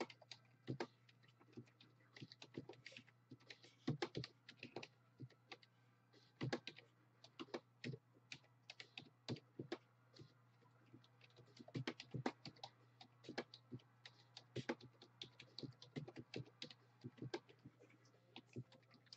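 Typing on a computer keyboard: faint, irregular runs of key clicks with short pauses, over a low steady hum.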